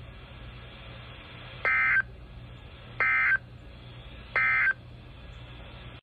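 NOAA Weather Radio SAME End-of-Message code played through a Midland ER50 weather radio's small speaker: three short, identical, buzzy digital data bursts about a second and a half apart. The code marks the end of the Required Weekly Test broadcast.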